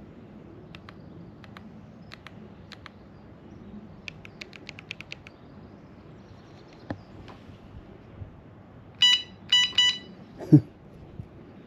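Small plastic clicks of an e-bike handlebar control pad's buttons being pressed, with a quick run of about eight clicks midway. Near the end the bike's electronics give three short beeps, followed by a single thump.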